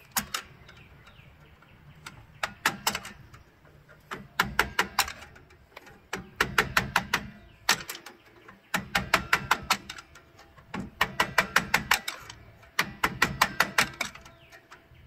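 Hammer tapping a screwdriver against the star wheel adjuster of a drum brake, turning the star wheel to spread the brake shoes out. It comes as quick runs of sharp metallic taps, about five or six a second, repeated about seven times with short pauses between.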